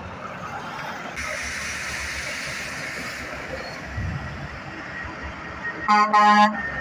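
Truck air horn giving two short toots, one close after the other, over steady highway traffic noise with passing trucks.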